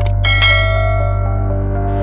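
Outro jingle music: a sustained low synth chord with a bell-like chime struck about half a second in, ringing out.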